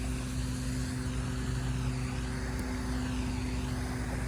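A motor drones steadily in the background, a low even hum with no change in pitch.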